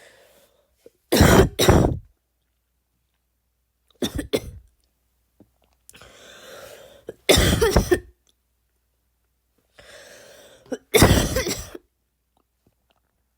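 A person's deliberately forced barking cough, in four loud bouts about three seconds apart, the first two as double barks. Before each of the last two comes a long noisy breath in.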